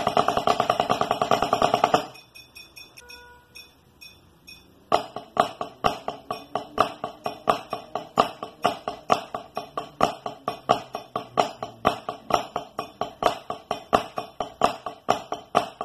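Drumsticks playing flam rudiments (flam taps, single flammed mill, Swiss Army triplets) on a rubber practice pad: a fast, even run of sharp taps with accented flams. The first couple of seconds are louder and denser; the playing drops away about two seconds in and starts again about five seconds in.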